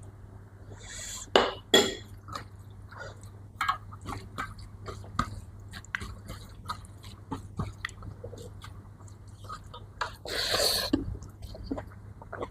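Close-up eating sounds: wet chewing and mouth clicks throughout, two sharp knocks about a second and a half in, and a louder noisy sound lasting about a second near the ten-second mark.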